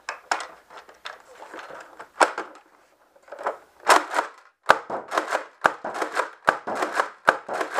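Nerf Rival Atlas XVI-1200 pump-action blaster being pumped hard and fast, its slide clacking and firing foam rounds, two per pump. A few scattered clicks come first, then a fast run of sharp clacks from about three and a half seconds in.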